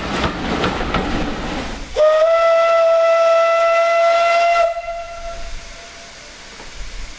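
Passenger coaches rolling past on the rails, with wheel clicks. Then an Isle of Man Railway steam locomotive's whistle sounds one steady note for about two and a half seconds.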